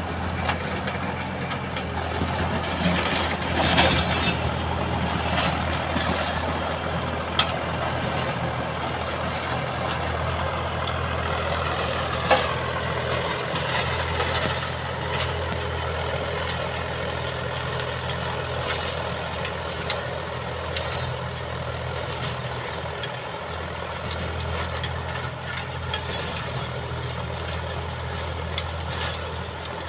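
Tractor diesel engine running steadily under load, pulling a rotavator that is tilling dry soil. A sharp knock is heard about twelve seconds in.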